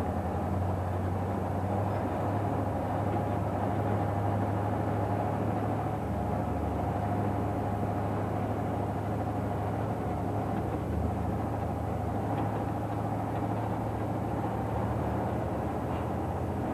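Heavy dump truck's engine running steadily under way, heard from inside the cab as a steady low drone.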